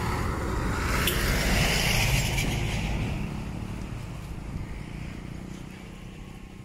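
Minibus passing close by, its engine and tyres loudest a second or two in, then fading steadily as it moves away.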